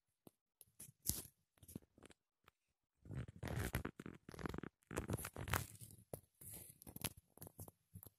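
Irregular rustling and scraping of cloth against the camera's microphone as it is handled close to legs and socked feet, with a few short clicks; the densest rustling comes in the middle of the stretch.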